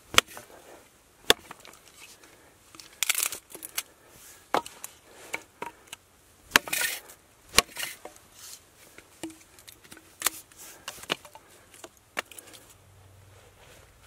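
Small hatchet chopping and splitting kindling sticks on a log: a run of irregular sharp knocks, a few of them with a longer cracking rasp as the wood splits apart.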